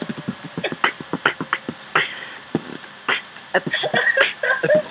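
Human beatboxing: fast vocal kick-drum and snare hits in a steady groove, with wavering vocal turntable-scratch imitations near the end.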